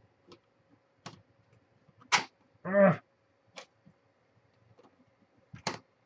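Scattered sharp clicks and knocks of hard plastic blaster parts being handled and fitted. There is a louder click just past two seconds, followed straight away by a brief pitched sound that is the loudest thing heard, and a few more clicks near the end.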